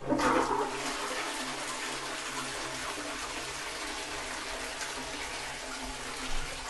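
Close-coupled WC toilet flushing: a sudden rush of water into the bowl, loudest at the start, then a steady swirling rush as it drains.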